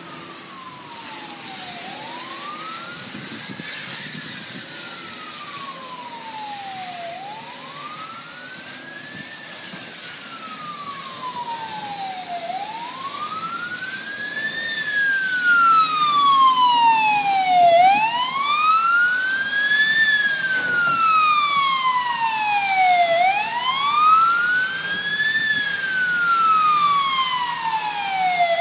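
Emergency vehicle siren on a slow wail, its pitch sweeping up and down about every five seconds, growing much louder from about halfway through.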